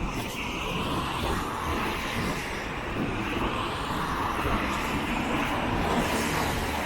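Strong wind gusting and buffeting on the microphone during a storm, a rough, steady rumble that swells and eases.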